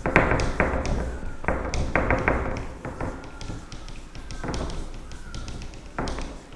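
Board duster scrubbing a whiteboard in quick back-and-forth strokes, each stroke a short rubbing scrape, coming fast at first and thinning out after about three seconds.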